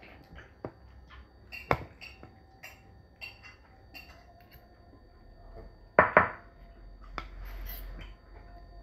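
Metal fork and spoon clinking and scraping against a ceramic plate while cutting up food, in scattered light clicks with a louder pair of clinks about six seconds in.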